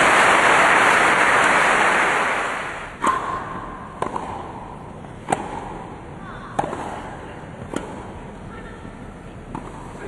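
Crowd applause fading out over the first few seconds, then a tennis rally: sharp racket strikes on the ball about once a second.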